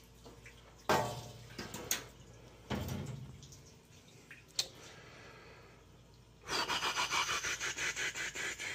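A few knocks and clunks, then near the end water gushing out of the leaking Burnham Alpine boiler's piping in rapid pulses, about six a second.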